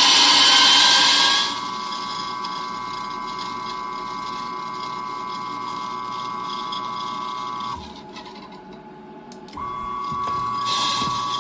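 Electric coffee grinder running on a powdered grinder-cleaning agent. It grinds loudly for about the first second and a half, then the motor whines steadily. It stops about eight seconds in and starts again a second and a half later, with loud grinding returning near the end.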